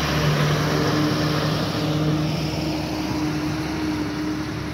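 Ashok Leyland truck's diesel engine running steadily as the loaded truck pulls up the grade and passes close by, getting a little quieter toward the end. It is climbing without struggle.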